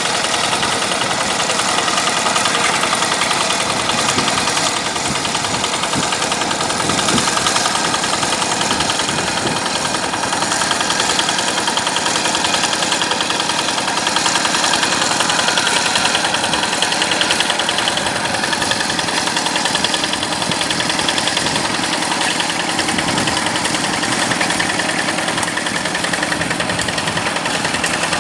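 Yanmar diesel engine of a rice-paddy hand tractor running steadily, with a rapid, even pulse from its firing.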